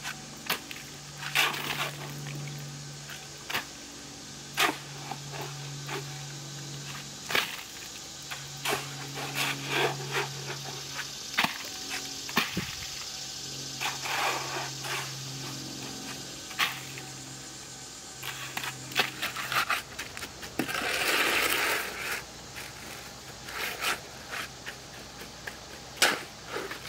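A hoe and a shovel scraping and chopping through wet concrete mix, with many short sharp scrapes and knocks of the metal blades. A longer rushing scrape comes about two-thirds of the way in.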